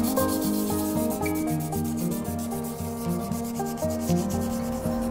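A brass wire brush scrubbed briskly back and forth over a wooden umbrella handle: a rapid scratchy rasping, several strokes a second, easing off near the end. Background music plays underneath.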